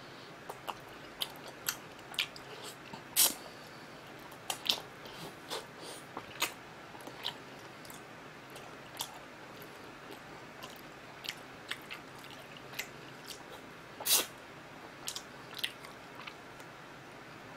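Close-miked eating sounds: a man chewing and gnawing grilled marinated rib meat off the bone by hand, with irregular wet lip smacks and mouth clicks. Two louder smacks come about three seconds in and about fourteen seconds in.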